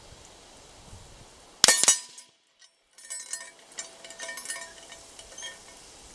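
A single loud rifle shot from a Tikka T3X bolt-action rifle about one and a half seconds in, followed a second or so later by a run of light metallic clicks and clinks.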